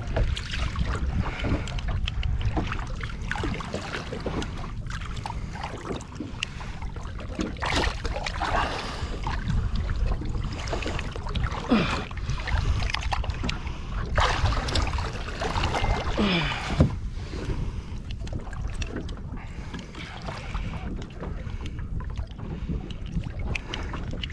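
Wind on the microphone and water slopping against the hull of a small boat, with scattered knocks from handling gear at the side of the boat and a couple of short falling squeaks, around the middle.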